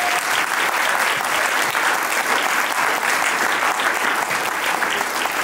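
Audience applauding, a dense, steady clapping from a full house.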